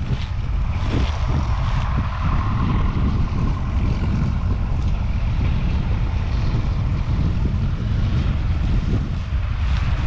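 Diesel tractor engine running steadily close by, with wind buffeting the microphone.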